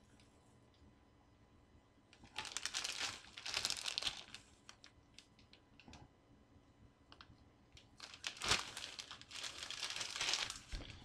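Clear plastic bag crinkling as it is handled, in two spells of rustling: one from about two seconds in lasting a couple of seconds, and a longer one from about eight seconds in.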